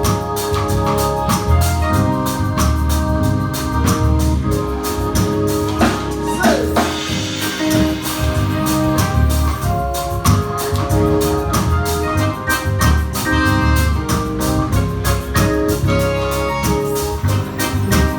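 Live band playing an instrumental passage: sustained organ chords over bass and a steady drum beat.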